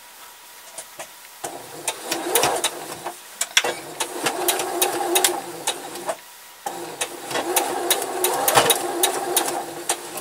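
Electric household sewing machine stitching in three short runs with brief stops between them, with sharp clicks throughout, as a seam end is backstitched forward and back.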